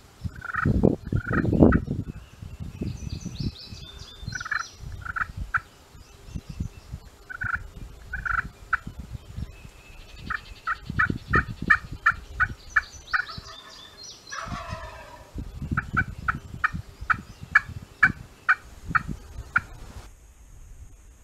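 Wild turkeys calling: runs of short, evenly spaced yelping notes and gobbling, with a low rumble a second or two in.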